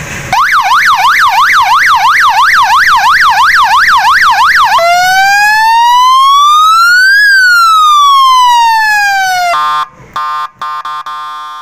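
Compact electronic police-style siren horn for a bike or car, switched from a three-button pad: a fast up-and-down yelp for about four and a half seconds, then one slow wail that rises and falls, then a few short blasts of a steady horn tone near the end.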